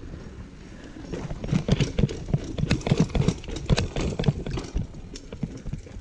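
Mountain bike rattling down outdoor steps: wind and tyre rush, then from about a second and a half in a fast, irregular run of sharp knocks and clatters from the wheels, frame and chain as it bumps over each step, thinning out near the end.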